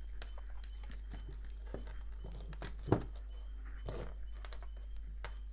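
Insulated hook-up wires and a circuit board being handled and moved about on a wooden workbench: small rustles and clicks, with one sharper knock about three seconds in, over a steady low hum.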